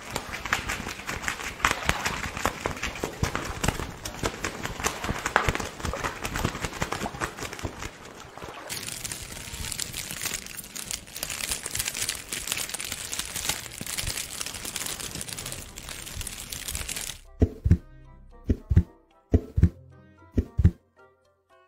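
Film sound effects: a dense crackling, crinkling noise like a campfire, full of small snaps. About seventeen seconds in it gives way to low thumps in pairs, a heartbeat.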